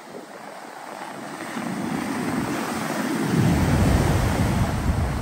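Surf on a sandy beach: foam washing up and a wave breaking close in, growing louder and swelling into a heavy low rumble about three and a half seconds in, with wind buffeting the microphone.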